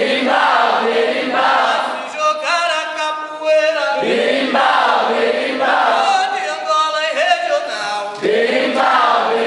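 Capoeira call-and-response singing: a solo voice sings a line and a group chorus answers, trading back and forth about every two seconds.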